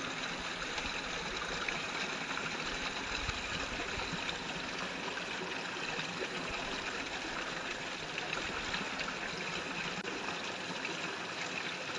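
Steady rushing noise like a running stream, even throughout with no distinct events.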